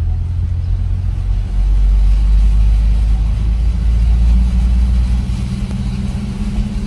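Low, steady rumble of a car driving through standing floodwater, heard inside the cabin, swelling for a few seconds in the middle.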